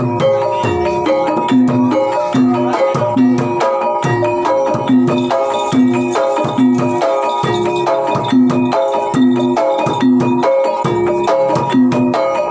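Javanese gamelan music for a jaranan (kuda lumping) performance: struck tuned percussion plays a fast repeating pattern of notes over drums.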